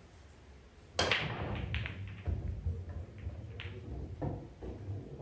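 Pool break shot about a second in: the cue ball cracks into the racked balls, followed by a scatter of clacks as the balls hit each other and the cushions, over a low rumble of balls rolling across the table.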